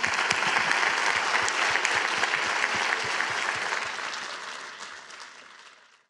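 Audience applauding in an auditorium: dense clapping that fades over the last couple of seconds and then cuts off suddenly.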